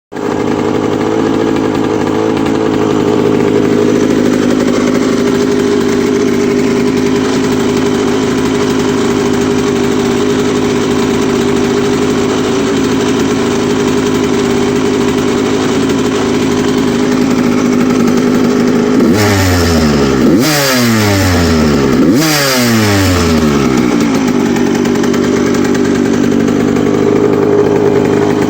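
2000 Suzuki RM80's two-stroke single-cylinder engine idling steadily after its rebuild, blipped three times in quick succession about two-thirds of the way through, the revs falling back to idle after each, before settling to idle again.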